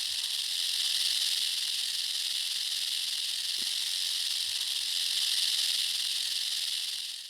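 Steady high-pitched hiss that swells a little and cuts off suddenly at the very end.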